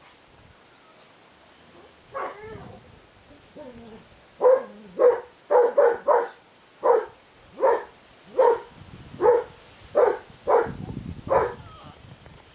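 Old English Sheepdog puppy barking: a single call about two seconds in, then a run of about a dozen short, high yaps, nearly two a second.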